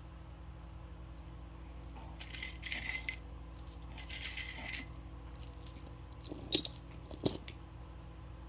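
Small pieces of costume jewelry jingling and clinking as they are handled, in two short bursts, then a couple of sharp clicks near the end. An electric fan hums steadily throughout.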